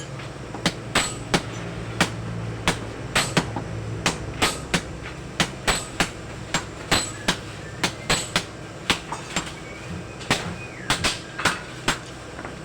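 Blacksmith's hammer striking hot steel on an anvil while forging a dagger blade, sharp ringing blows about three a second in an uneven rhythm. A steady low hum runs underneath.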